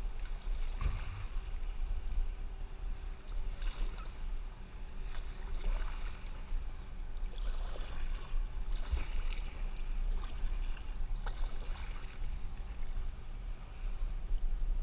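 Kayak paddle strokes: the blades dip and splash into the water about every two seconds, with drips between, over a steady low rumble.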